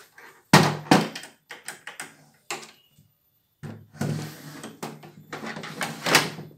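Two loud knocks close to the microphone, a few lighter clicks, then a few seconds of scraping, rustling handling noise with a low rumble.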